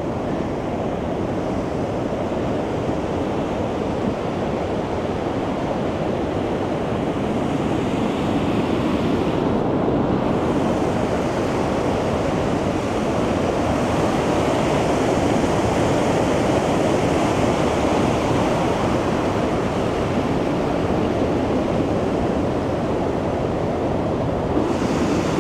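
Fast river rapids rushing steadily over rocks, a constant wash of white water that grows a little louder midway.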